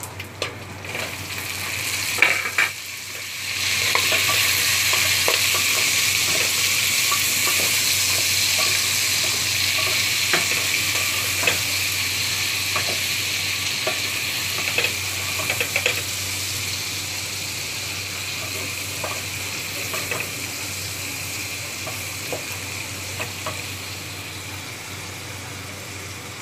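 Chopped tomatoes going into sautéed pork and onion in hot oil in a stainless steel pot. A loud sizzle jumps up about three seconds in and slowly dies down, while a wooden spoon stirs and clicks against the pot.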